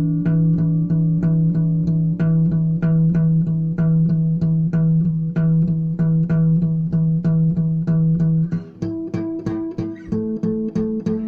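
Instrumental music of plucked-string notes in a steady pulse of about four notes a second over held low notes, with a change of chord about nine seconds in.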